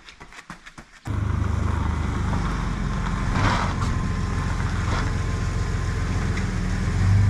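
Pickup truck engine running steadily, cutting in abruptly about a second in after a few faint clicks.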